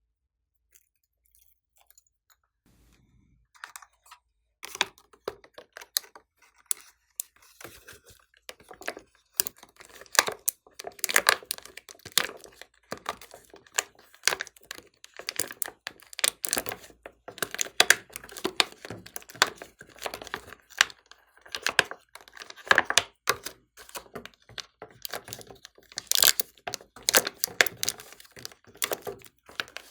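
Glossy slime being worked by hand: a dense, irregular run of sticky clicks and pops, starting a few seconds in after near silence.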